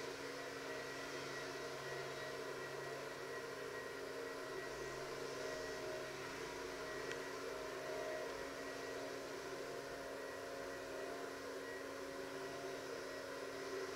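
Steady mechanical hum and hiss with a faint high whine held on one pitch, unchanging throughout, with no distinct knocks or clicks.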